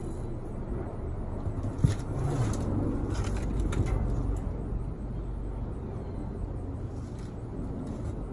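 A few clicks and knocks of metal parts being handled as a gas hose and its fitting are worked into a stainless-steel grill frame, the sharpest click about two seconds in, over a steady low outdoor rumble.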